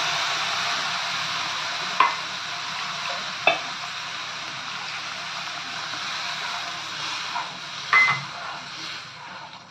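Water poured into a pan of hot, oil-roasted semolina, sizzling steadily and slowly dying down. There are three sharp knocks against the pan, about 2, 3.5 and 8 seconds in, as the mixture is stirred.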